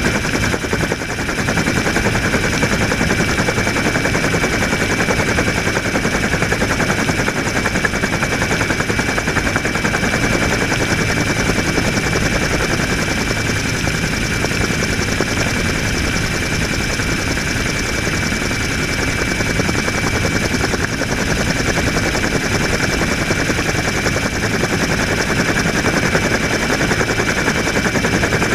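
Helicopter rotor and turbine heard from on board: a rapid, steady beating of the blades with a steady high whine over it.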